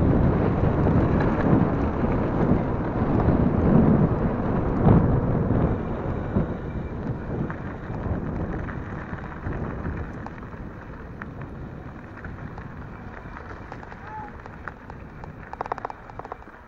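Wind buffeting the bike-mounted camera's microphone and mountain-bike tyres rolling over a gravel track at speed, a loud rushing rumble that fades away over the second half. A few light clicks near the end.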